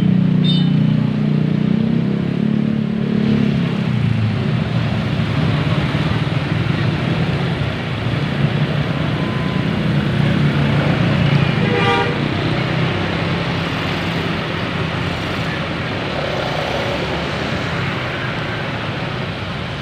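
Bus and road traffic noise, loud and steady, with a short horn toot about twelve seconds in.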